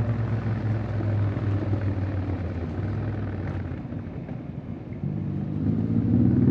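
Honda X-ADV 750's parallel-twin engine under way. It eases off and quietens for a few seconds, then about five seconds in picks up again, rising in pitch and getting louder as it accelerates.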